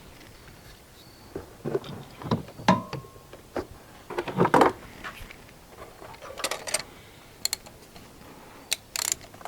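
Scattered short metallic clicks and knocks of hand tools, a ratchet and socket, at work on the spark plugs in the engine bay, the loudest about halfway through.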